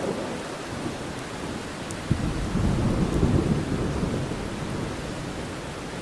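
Heavy rain falling steadily with thunder. The tail of a rumble dies away at the start, then a new clap breaks sharply about two seconds in, rumbles for a couple of seconds and fades.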